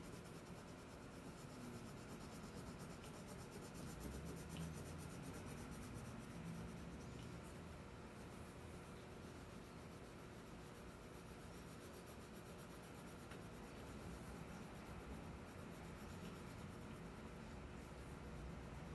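Wax crayon rubbed back and forth on paper to fill in an area with colour: a faint, steady scratching.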